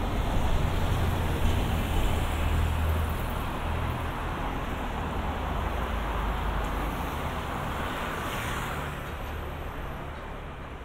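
Road traffic: a motor vehicle passing close by, its low rumble loudest in the first few seconds and then fading away over a steady hiss of traffic.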